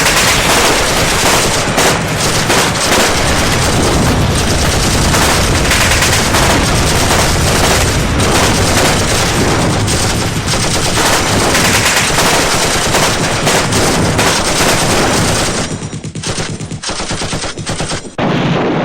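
Dense, rapid automatic gunfire, many machine-gun-like bursts overlapping with no pause, thinning out a few seconds before the end, then a short loud return that cuts off abruptly.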